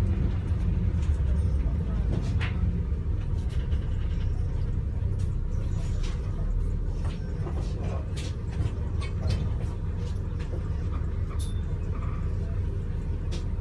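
Double-decker bus in motion, heard from the upper deck: a steady low engine and road drone, with scattered clicks and rattles.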